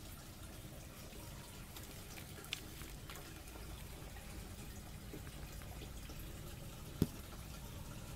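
Rabbit eating pellets from a plastic bowl, heard as a few faint sharp clicks over a low steady background hum, with one louder knock about seven seconds in.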